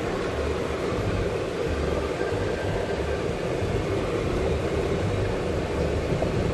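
Steady engine and road noise of a car driving slowly, heard from inside the cabin.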